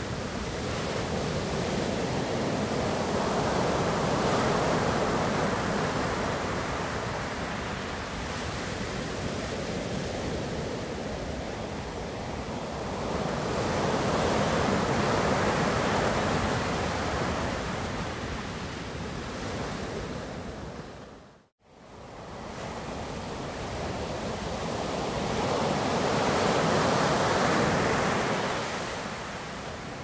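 Rolling surf: a steady rushing wash that swells and ebbs about every eleven seconds as waves break and draw back. About two-thirds of the way in, the sound cuts out for an instant and then fades back in.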